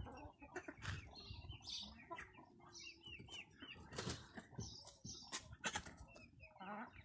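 Wyandotte chickens clucking and chirping: many short calls overlap throughout, with a few sharp scuffling noises among them.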